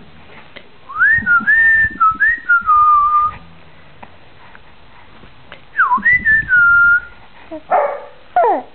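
A person whistling two short melodic phrases, the notes gliding up and then holding, the first about a second in and a shorter one about six seconds in.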